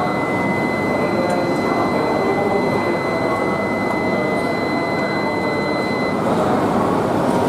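A shinkansen door-closing warning tone: one steady high tone that sounds as the train's doors slide shut and stops about six seconds in. A constant hum of platform noise runs underneath.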